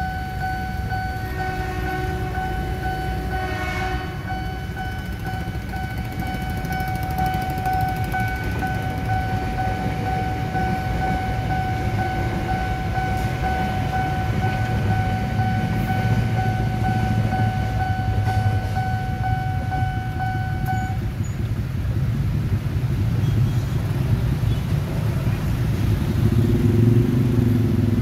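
Level-crossing warning signal sounding one steady, unbroken tone while a KRL commuter electric train, a former Tokyo Metro 6000 series set, passes with a low rumble. The warning cuts off about 21 seconds in once the train has cleared. Motorcycle engines start up and rev near the end as the traffic prepares to move.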